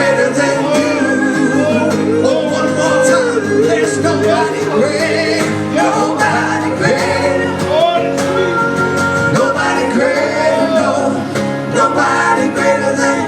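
Live church worship song: singing with instrumental accompaniment, the voices holding and bending long notes without clear words.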